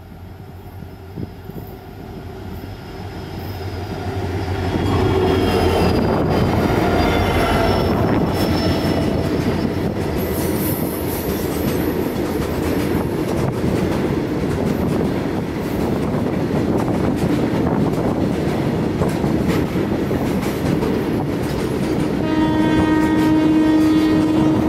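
WDG4 diesel-electric locomotive with its 16-cylinder two-stroke EMD engine approaching and passing at speed, getting louder over the first five seconds. It is followed by a long run of covered goods wagons rattling and clattering over the rails. A steady train horn sounds for about two seconds near the end.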